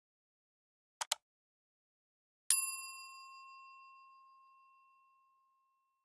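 Subscribe-button animation sound effects: a quick double click about a second in, then a single bright bell ding that rings out and fades over about three seconds.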